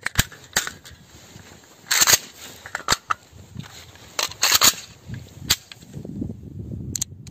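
AK-pattern rifle's magazine being rocked out of and into the magazine well: a series of sharp metallic clicks and clacks, the loudest about two seconds in. A low rumbling noise runs under the second half.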